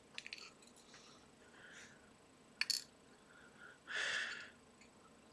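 Faint clicks and taps of small lock parts and tools being handled during disassembly of a pin-tumbler padlock: a few light clicks at the start and a sharper click near the middle, with a short hiss about four seconds in.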